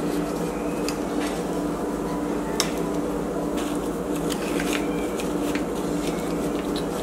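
Small spatula scraping around the inside rim of a metal springform pan to loosen a baked cheesecake: faint scattered scrapes and ticks, with a sharper click about two and a half seconds in, over a steady low hum.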